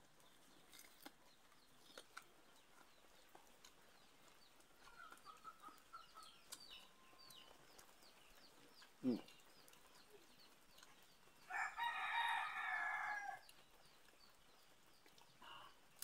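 A rooster crows once in the background about twelve seconds in, a single call lasting nearly two seconds. Earlier there is a brief low falling sound, with faint clicks and chirps around it.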